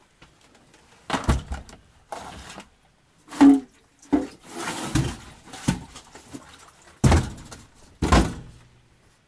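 Doors and cab of a UAZ off-road vehicle clunking and thudding as someone gets in: a string of irregular knocks, the two sharpest close together near the end, just before the engine is started.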